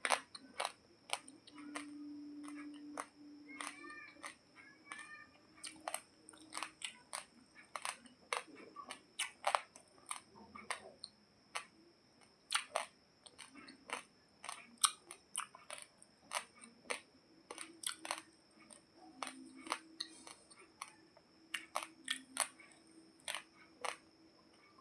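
Dry raw basmati rice grains crunched and chewed in the mouth: a run of sharp, irregular cracks, several a second.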